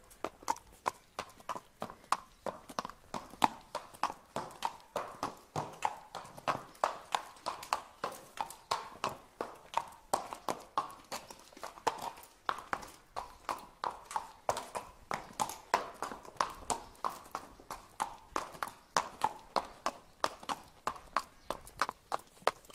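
Horse hooves clip-clopping at a steady walk, about three sharp hoof strikes a second.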